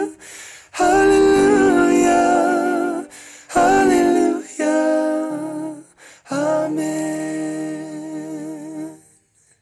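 The end of a song: long held sung notes with vibrato over soft accompaniment, in phrases of a second or two with short breaks between them, without clear words. It dies away near the end.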